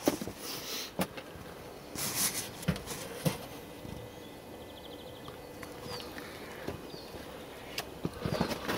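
Footsteps and scattered light knocks and clinks while working on a tractor, with a short scraping noise about two seconds in.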